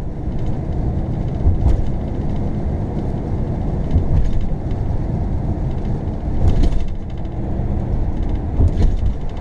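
RV driving slowly, a steady low rumble of engine and tyres heard from inside the cab, with a few brief rattles.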